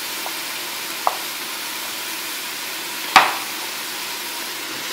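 Food frying in a pan on the stove with a steady sizzle, with a couple of light knife taps on a wooden cutting board early on and one loud clack about three seconds in as the chef's knife is set down on the board.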